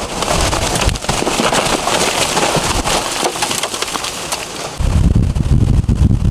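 Hurricane winds driving heavy rain, with loose debris clattering and skittering across the wet pavement in many sharp clicks. About five seconds in this changes abruptly to deep, gusting wind noise buffeting the microphone over breaking storm-surge waves.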